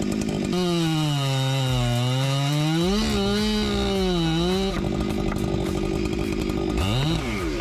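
Two-stroke chainsaw running under load in a cut: its engine note sags in pitch and recovers twice as the chain bogs in the wood, then runs steady again, with a brief rev near the end.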